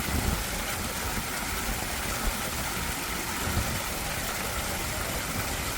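Terrace water fountain running: a steady rush of splashing water with a low rumble underneath.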